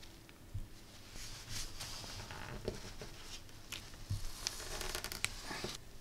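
Faint handling sounds of soft metal wire being bent and pressed into shape on a paper instruction booklet: light scraping and small clicks of wire and a hand tool, with a quicker run of clicks a little before the end.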